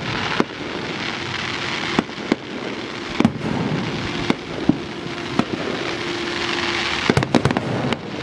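Fireworks display: a dense, steady crackle with sharp bangs about every second or so, and a quick string of several bangs about seven seconds in.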